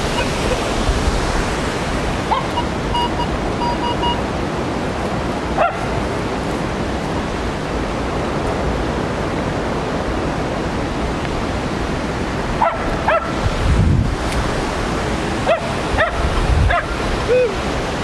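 Steady rushing of a waterfall, with a metal detector's short beeps between about two and four seconds in, and a dog yipping and barking several times in the second half.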